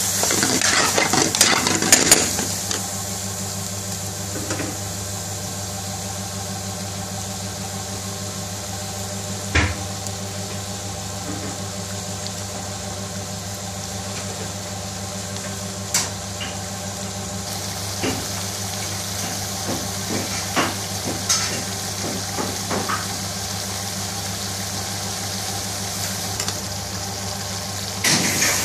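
A metal spoon stirs and scrapes through chicken curry in a metal pan for the first couple of seconds. Then the thick sauce simmers with a steady sizzle, with scattered pops as bubbles burst, over a steady low hum.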